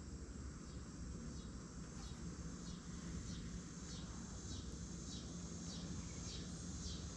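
Faint high chirps that repeat about twice a second, each falling quickly in pitch, over a low steady hum.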